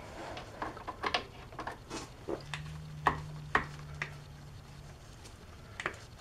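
Hand grease gun being pressed onto and pumped into a grease fitting on an ATV's rear suspension arm: scattered light metallic clicks and clacks. A faint low hum runs for a couple of seconds midway.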